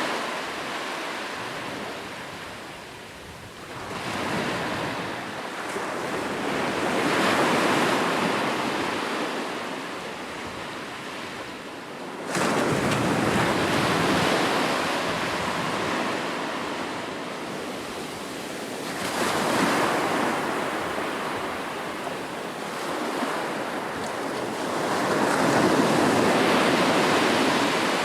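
Ocean waves breaking on the shore, four slow surges that swell and fall back, one wave crashing in abruptly about twelve seconds in.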